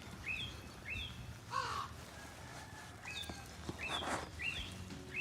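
Wild birds calling: a short chirp that falls in pitch, repeated about twice a second, with two louder, rougher calls.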